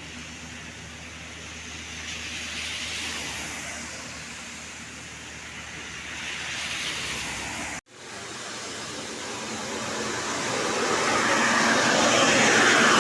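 Road traffic going by: the rushing noise of passing vehicles swells and fades twice, over a low engine hum. The sound cuts off abruptly about eight seconds in. It then resumes as a vehicle approaches and grows louder, loudest near the end.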